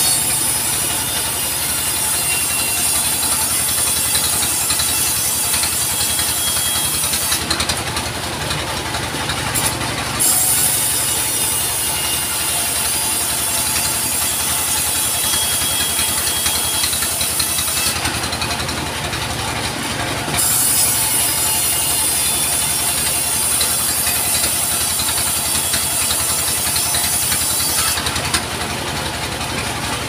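Engine-driven sawmill saw running steadily and cutting lengthwise through logs with a high hissing rasp. The cutting sound drops out briefly three times, about a third of the way in, two-thirds of the way in and near the end, while the engine runs on.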